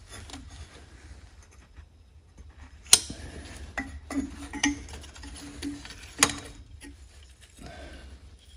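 Light metallic clicks and clinks from a stamped-steel throttle control bracket, lever and springs being handled and fitted back onto a small engine, with two sharper clicks about three seconds apart and a faint low hum underneath.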